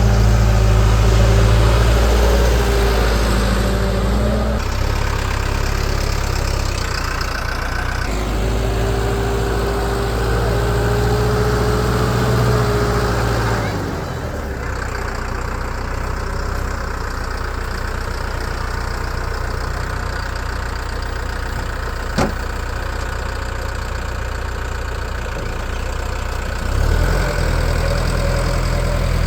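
Heavy vehicle's diesel engine idling and running steadily; it drops back about halfway through and picks up again near the end.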